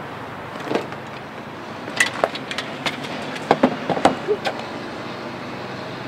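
Steady street traffic noise, with a quick run of sharp clicks and knocks between about two and four and a half seconds in.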